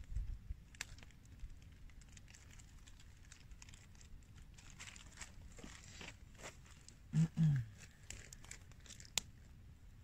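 Plastic bag crinkling and rustling as it is handled, with scattered clicks. A short low double thud about seven seconds in is the loudest sound, and a sharp click follows near the end.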